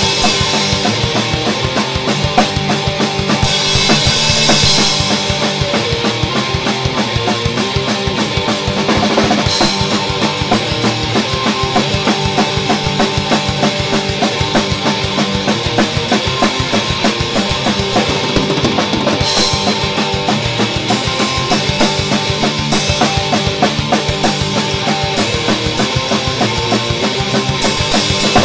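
Electric guitar through an amp and a drum kit played live together, with a fast, steady beat and crash cymbals breaking in a few times.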